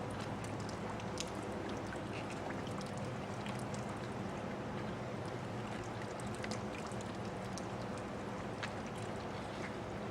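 Water spraying and spattering from a leak in a pressurized water line as repair tape is pulled tight and wrapped over it, with many small irregular crackles and drips over a steady low hum.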